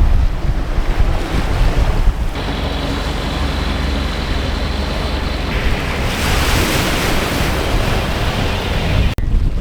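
Wind rumbling on the microphone over the rush of water along a sailboat's hull, with a louder hiss of water from about six seconds in.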